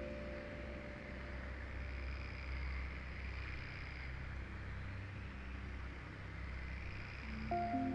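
A soft, steady nature ambience: a low rumble under a gently swelling hiss, like night insects or wind, in a pause of the ambient music. Sustained synth-pad notes come back in near the end.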